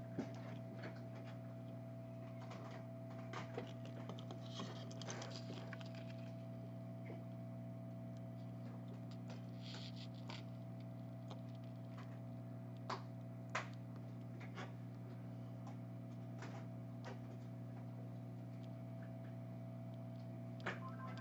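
A steady low electrical hum with faint, scattered clicks and scratches, the loudest two about 13 seconds in: a soldering iron and desoldering wick working solder out of the charging-port holes on a phone's circuit board.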